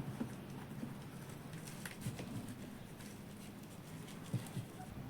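Singju salad of shredded cabbage and chili being mixed in a bowl: soft, irregular rustling with a few faint clicks and taps.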